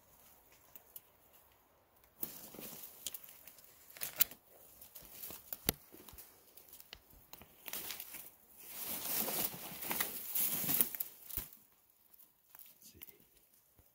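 Leaves and twigs of wild huckleberry bushes rustling and crackling as they are pushed through and handled, in two louder stretches, with a few sharp twig snaps.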